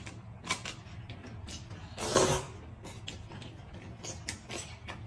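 Close-miked eating sounds: scattered small crunches and mouth clicks of chewing, with one louder slurp of noodles from a bowl about two seconds in.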